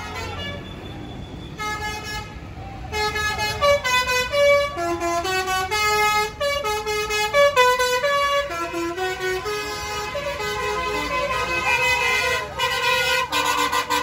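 Several tour buses' basuri musical air horns playing tunes over one another: strings of held horn notes stepping up and down in pitch. It starts with a few scattered notes, then from about three seconds in the horns overlap thickly and get louder.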